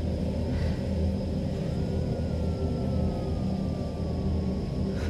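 Dark, ominous sound-design drone: a steady low rumble, with a faint thin tone sliding slowly down in pitch from about a second and a half in.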